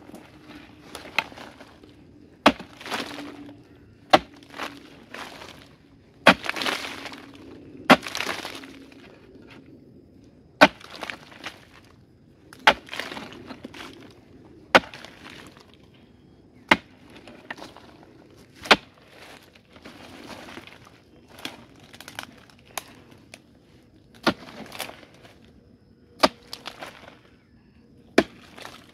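Hard termite-mound earth being struck with a digging tool about every two seconds. Each blow is a sharp crack, several followed by a short rattle of breaking, crumbling earth.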